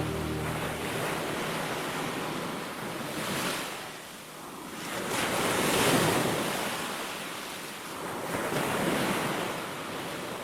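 Ocean surf breaking on a shore, the wash swelling and ebbing in slow surges, three times over the span.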